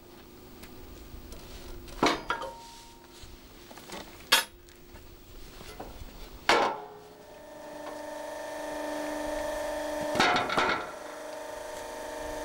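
Metal clanks from a Posch SplitMaster 9 log splitter as it is wheeled and set down. About seven seconds in a steady hum of its motor and hydraulic pump comes up, with more clanks near ten seconds.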